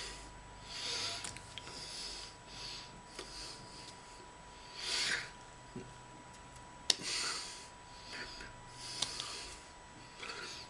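Short, irregular breathy puffs and hand rustles from a man signing, with a few sharp clicks, the loudest about seven seconds in. A faint steady high tone runs underneath.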